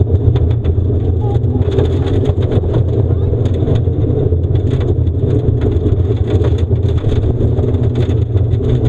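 Mitsubishi Lancer Evolution IV rally car's turbocharged four-cylinder engine running hard, heard inside the cabin, with gravel clicking and rattling against the underbody.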